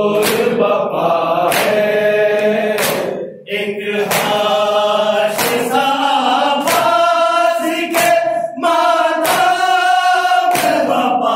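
Group of men chanting a noha, a Shia elegy, in unison. Sharp chest-beating strokes (matam) fall about once every 1.3 seconds and keep the beat. The singing breaks briefly about three seconds in.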